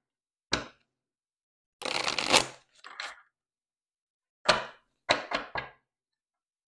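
A deck of tarot cards being shuffled by hand: a sharp click about half a second in, a brief riffling rush of cards around two seconds in, then four quick clicks of the deck being tapped and squared.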